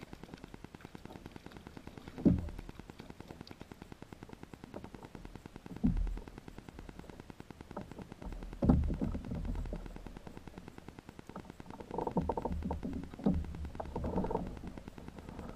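Rapid, steady pulsing buzz of wireless-microphone interference over the recording. Over it come dull thumps about two, six and nine seconds in, then a stretch of rougher noise near the end, as a hooked trout is played and reeled in beside a kayak.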